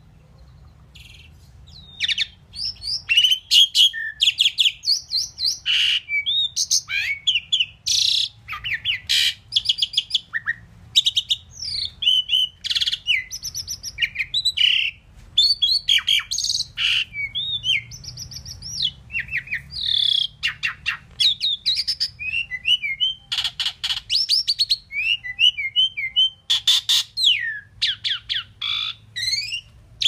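Asian pied myna singing: a long, fast, varied run of whistled notes, sliding glides and rapid clicking chatter, starting about two seconds in with only brief gaps.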